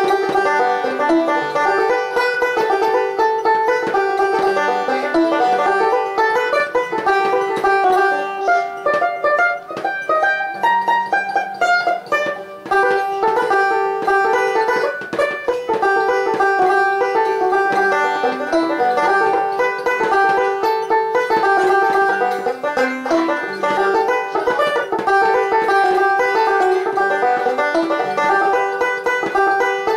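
Epiphone five-string banjo picked without a break: a steady run of plucked notes, loose noodling rather than a set tune.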